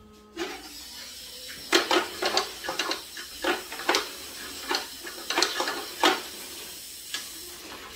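Irregular clattering and clicking of small hard objects being handled, about a dozen sharp knocks over a faint steady hiss.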